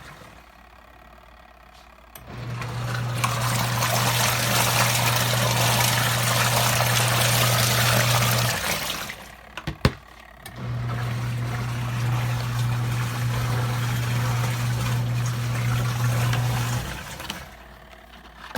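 COSTWAY twin-tub portable washing machine's wash motor running with a steady low hum while water and laundry slosh in the tub. It runs for about six seconds, stops briefly with a click, then runs again for about six seconds, the stop-and-start of the wash cycle changing direction.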